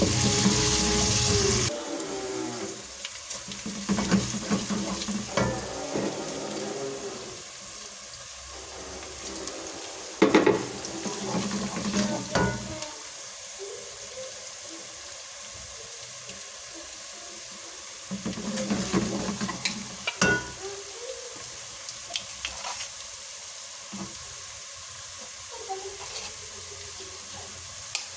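Food sizzling in a cooking pan as it is stirred, with the spoon scraping and knocking against the pan now and then. The sizzle is loudest in the first couple of seconds.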